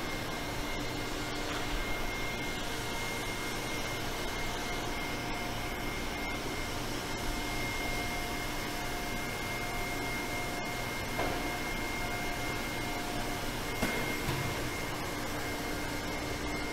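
Machinery of a running chocolate process line: a steady mechanical hum and whir from its motors and pumps, with a thin high whine throughout and a lower tone that drops out about eleven seconds in.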